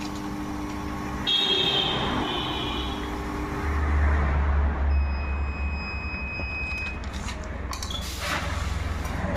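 Spice weigh-filling machine running with a steady low hum that swells in the middle. A high buzzer beep holds for about two seconds, the signal that the set weight is reached and the fill cuts off.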